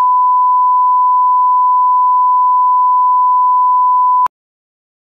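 Television test-card reference tone: one loud, steady pure tone that cuts off sharply with a small click about four seconds in.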